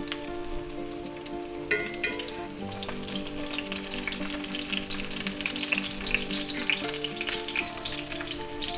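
Breaded pork cutlets frying in plenty of hot oil in a cast iron skillet: a steady crackling sizzle. Background music plays with it.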